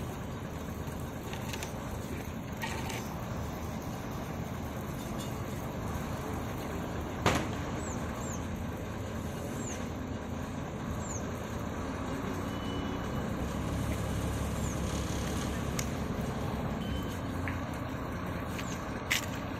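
Truck-mounted crane's engine running steadily at idle, a little heavier for a few seconds past the middle. A sharp click sounds about seven seconds in and another near the end.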